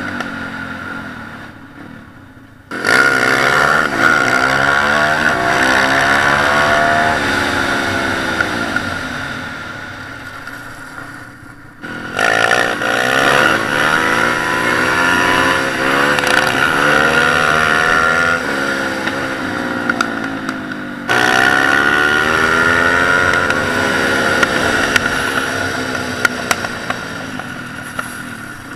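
Pit bike single-cylinder four-stroke engine, heard on board, revving hard and accelerating in repeated pulls. Three times the throttle snaps open with a sudden jump in loudness, and each time the pitch climbs and then slowly drops away as the bike eases off.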